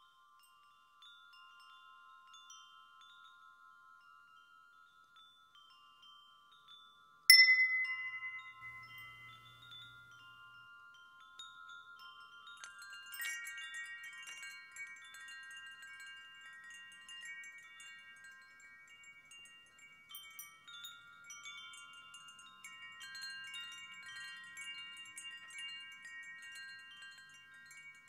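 Chimes ringing: many overlapping, lingering tones. A single sharper strike about seven seconds in is the loudest moment. More chimes and a high shimmer join at about thirteen seconds.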